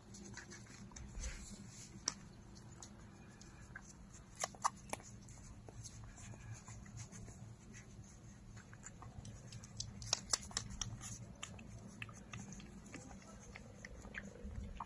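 Puppies suckling at their mother's teats: faint, irregular wet clicks and smacks, with a couple of sharper ones a little after four seconds and a busier stretch around ten seconds in, over a faint low hum.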